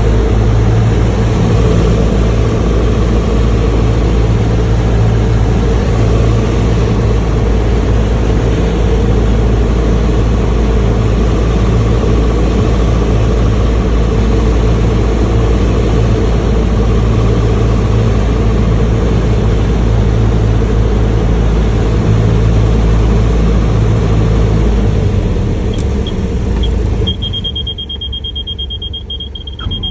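Light aircraft's piston engine and propeller droning steadily in the cabin. Near the end the drone drops off as power comes back, and a steady high-pitched warning tone sounds for the last few seconds.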